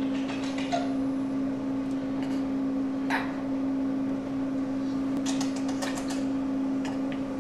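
A one-month-old baby hiccupping: a few short, sudden hics a couple of seconds apart, over a steady low hum.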